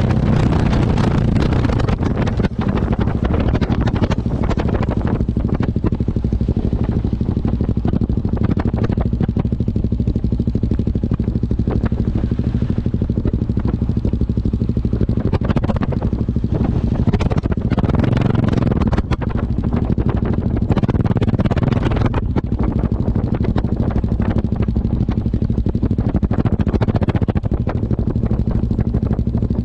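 Yamaha XT660X motorcycle's single-cylinder engine running through its exhaust with a steady low note, under a hiss that rises and falls.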